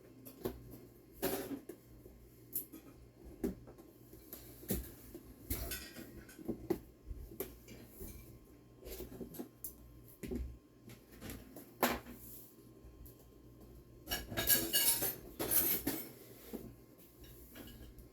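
Unboxing sounds: cardboard and plastic packaging being handled, with scattered taps and clicks and a longer stretch of rustling about 14 seconds in.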